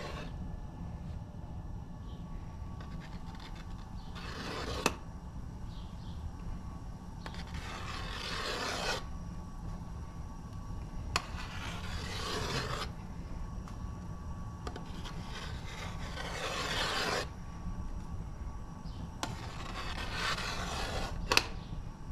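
Metal slotted skimmer scraping through the foam on boiling pomegranate juice in a large aluminium pot, in about five long strokes, with three sharp metal clinks, over a steady low rumble.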